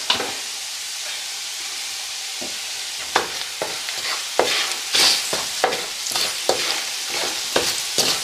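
Chopped onions and curry spices sizzling in hot oil in a steel wok. From about three seconds in, a wooden spoon stirs them, scraping against the pan in quick, irregular clicks over the steady sizzle.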